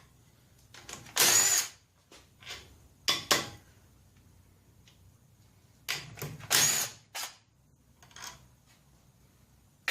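Power driver spinning out the bolts of a Kohler engine's oil pan, in several short bursts with pauses between.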